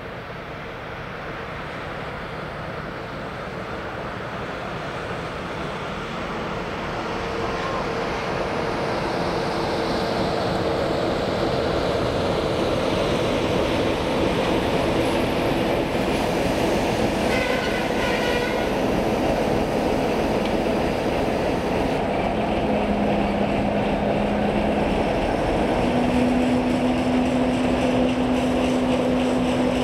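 ČSD T 458.1 diesel locomotive running as it hauls a coach slowly over station points, its engine steadily growing louder as it nears. A brief higher-pitched tone sounds about two-thirds of the way through.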